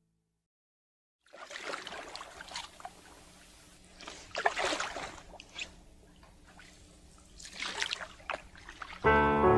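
Paddle strokes in the water from a small paddled boat: irregular splashes and trickling drips off the blade, with several louder splashes a second or two apart.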